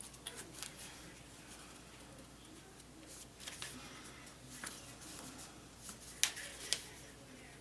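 Faint rustling and light clicks of a paper manual being handled and leafed through, with two sharper ticks about six seconds in.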